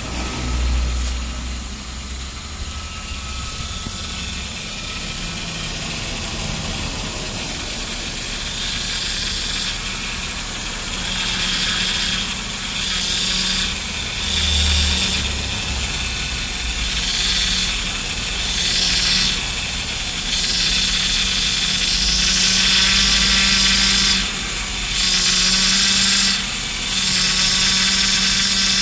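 Toyota Corona Premio's power steering pump humming and whining over the running engine, a high hiss that swells and drops away several times and grows stronger in the second half. The hum is the power steering fault the owner is chasing.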